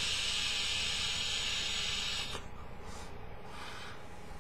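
Joyetech Cubis sub-ohm vape tank being drawn on: a steady hiss of air and vapour through the tank that stops a little over two seconds in. A softer breathy exhale of the vapour cloud follows near the end.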